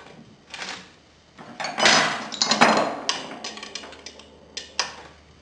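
Metal hand tools clinking and rattling while a crank puller is worked onto a bicycle crank arm. The loudest clatter comes midway, with a few sharp clicks near the end.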